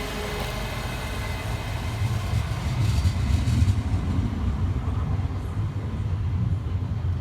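Scotrail Class 385 electric multiple units pulling away from the station, a low rumble of wheels on rail that swells about two seconds in and then eases off.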